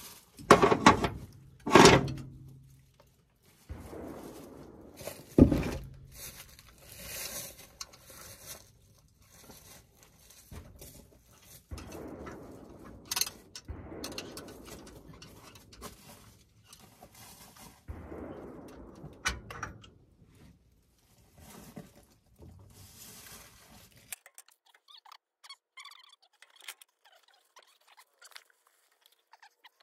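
Hammer blows and tool clatter on a seized truck brake drum: three loud metal knocks in the first six seconds, then scattered lighter knocks and rattling.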